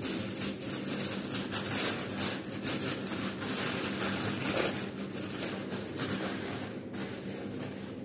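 Aluminium foil crinkling and crackling in irregular bursts as it is pressed and folded around a roasting dish.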